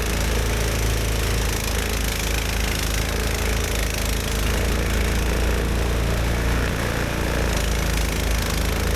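Snowblower's small gasoline engine running steadily.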